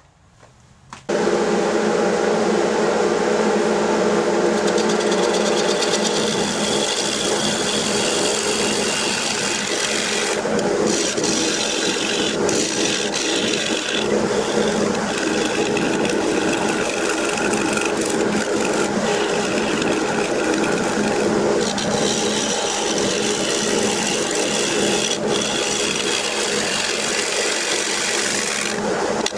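Wood lathe running while a Thompson bowl gouge cuts a spalted oak bowl blank: a steady hiss and rasp of the cut over the lathe's hum. It starts suddenly about a second in and dips briefly a couple of times.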